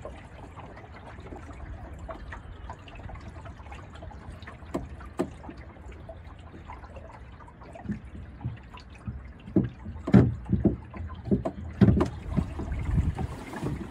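Water lapping and splashing against the hull of a small sailing dinghy under way, as irregular trickles and slaps over a low steady rumble; the splashes grow louder and more frequent in the second half.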